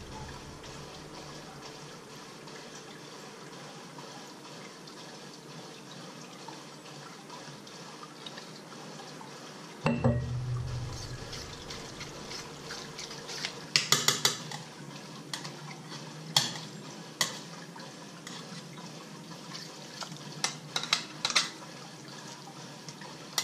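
Fork stirring a wet minced pork filling in a stainless steel pot, scraping and clinking against the metal. The first part is quiet, steady room hiss; in the second half come irregular sharp clinks and scrapes.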